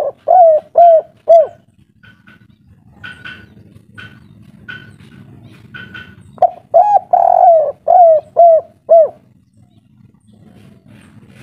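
Spotted dove cooing in its three-note 'kuk 3' style. A short run of low notes at the start, then a full phrase of about six hooting notes, one held longer, about six and a half seconds in.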